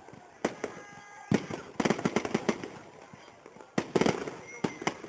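Aerial fireworks shells bursting: sharp bangs in quick clusters, several a second, with short gaps between the volleys.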